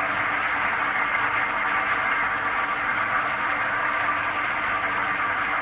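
Surface grinder running, its abrasive wheel grinding the face of a brake disc as the table is cranked back and forth under it: a steady grinding hiss over a constant hum.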